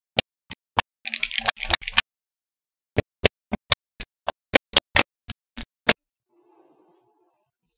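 Small magnetic balls clicking as they snap onto one another: a few single clicks, a short rattling cluster about a second in, then a quick run of about a dozen sharp clicks from about three to six seconds in.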